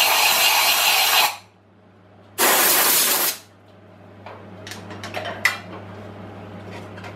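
Compressed-air blow gun blasting chips out of a head-stud hole being tapped in an engine block: one long hiss that stops about a second in, then a second shorter blast near the middle. A few light clicks of tools being handled follow.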